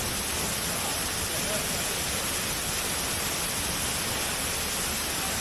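Waterfall, a steady, even rush of falling water that does not change.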